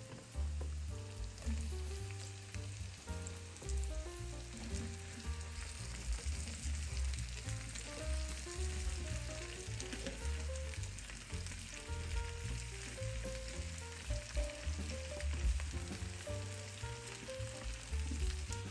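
Potato wedges, onion and carrot sizzling in hot fat in a frying pan, turned now and then with a wooden spatula. Soft background music with a bass line runs underneath.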